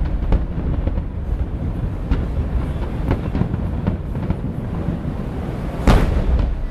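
Fireworks show: a continuous low rumble of aerial shell bursts, with several sharper bangs, the loudest near the end.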